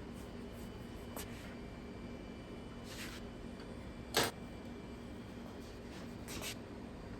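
A few short knocks and scrapes of hand work at a counter over a steady low hum. The loudest is a single knock about four seconds in.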